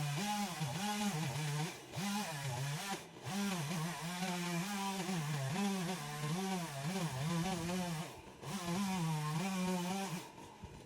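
Two-stroke chainsaw running, its engine pitch rising and falling over and over as the throttle is worked. It cuts out shortly before the end.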